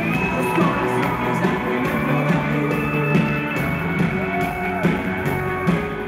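Rock band playing live, with a long held high note over the band and a voice singing. The music starts to fade out near the end.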